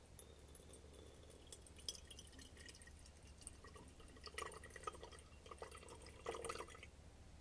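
Dilute hydrogen peroxide poured from a graduated cylinder into a glass Erlenmeyer flask: a faint, uneven trickle and splash of liquid, strongest in two spells about four and six seconds in.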